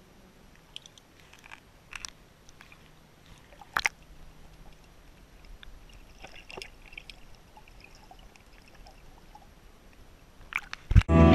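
Muffled underwater sound heard through a GoPro's waterproof housing: a low, even water hiss with scattered faint clicks and knocks, the sharpest about four seconds in. Music cuts in suddenly at the very end.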